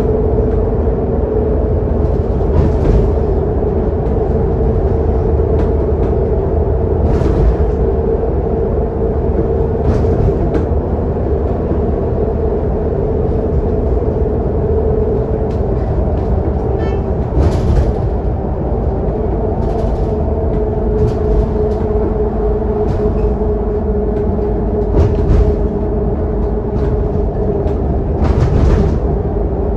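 Interior sound of a Scania K280UD double-decker bus on the move, heard from the lower deck: the diesel engine runs steadily under a continuous low road rumble, with brief louder rushes of noise at irregular intervals of a few seconds.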